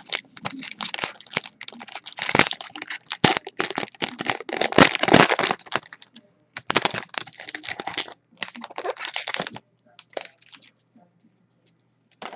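Plastic wrapping on a pack of trading cards being torn open and crinkled, a dense crackling that lasts about nine seconds. Then only a few light clicks and rustles as the cards are handled.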